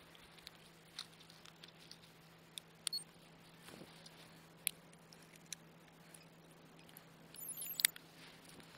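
Faint scattered clicks and taps from hands handling the plastic body of a quadcopter drone, with a louder bout of rustling and a sharp click near the end.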